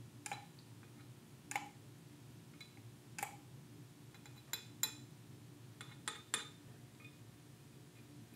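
Metal parts of a hand plane being handled and set against one another: about eight short, sharp clinks that ring briefly, at uneven intervals, with a few close together near the middle.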